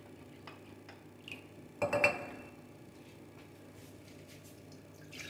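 Kitchenware handled on a counter: a few light clicks, then one clink with a short ring about two seconds in, as a milk bottle or mug is knocked or set down.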